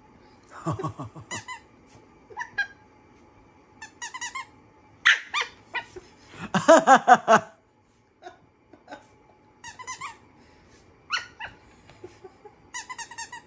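Small dogs yipping and giving short squeaky howls in scattered bursts, the loudest a longer, lower howl about seven seconds in.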